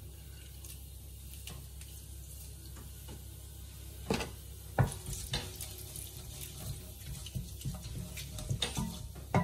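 Spices frying with a faint sizzle in hot oil in a pot. From about four seconds in, a wooden spoon stirs them, with a few sharp knocks against the pot.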